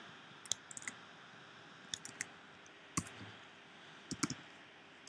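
Scattered clicks of computer keyboard keys being typed, irregular and sparse, the sharpest about three seconds in, over a faint steady hiss.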